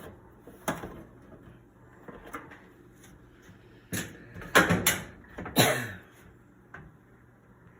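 Handling noises of tools and parts during the repair: a few separate knocks and clatters, the loudest cluster about four to six seconds in.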